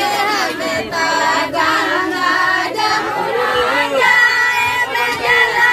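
A group of women singing together, many voices overlapping.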